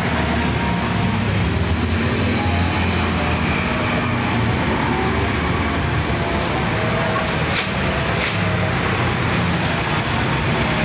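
Steady road traffic noise, with the low hum of running engines.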